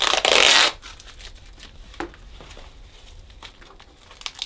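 Packaging being torn open in one sharp rip lasting under a second, followed by light rustling and small clicks as the contents are handled.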